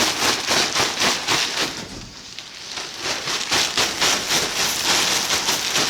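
Rapid, repeated scraping strokes, about five a second, as rabbit droppings are cleared off; the strokes ease briefly about two seconds in, then resume.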